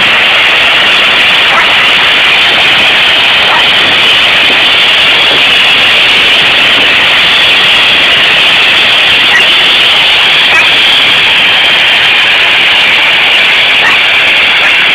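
Steam locomotive venting steam: a loud, steady hiss that holds unchanged throughout.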